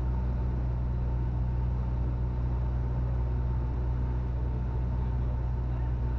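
Steady drone of a Cessna 172N's piston engine and propeller heard inside the cabin in flight, deep and even, with a faint steady higher tone above it.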